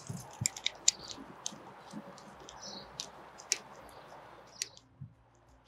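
Metal band clamp around a pipe being tightened with a hand driver: irregular sharp clicks and ticks over a faint steady hiss, stopping about three-quarters of the way through.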